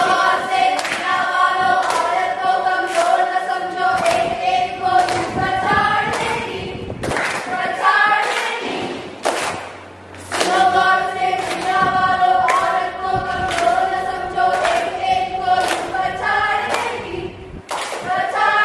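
A group of young men and women singing a chant-like song together, with a steady beat of hand claps. The singing comes in two long phrases with a break of a couple of seconds about eight seconds in.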